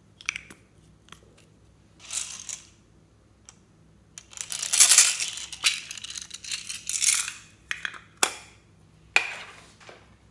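Pearl plastic beads rattling and clattering in a small plastic compartment case as they are shaken and tipped out onto the slime. There are sharp plastic clicks near the start and again near the end.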